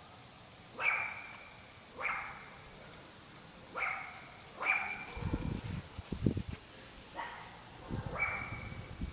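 Chocolate Labrador retriever puppies barking: about six short, high barks spread a second or two apart. From about halfway through there are low rustling thumps underneath.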